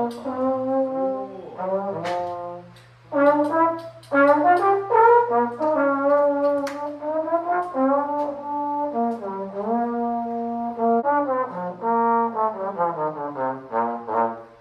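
Music with a brass lead, trombone-like, playing a slow melody of held notes that slide between pitches over a sustained low note, with a short break about three seconds in and quicker notes near the end.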